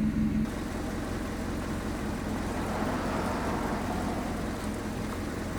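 Toyota Camry's engine idling steadily, a low even hum.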